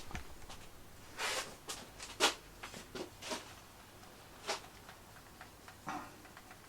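A string of light, irregular knocks and clicks from objects being handled, the sharpest about two seconds in, with a brief hiss about a second in.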